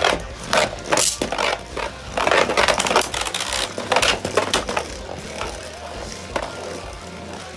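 Beyblade Burst spinning tops clashing in a plastic stadium: a rapid, irregular series of sharp plastic clacks, densest two to three seconds in and thinning out toward the end.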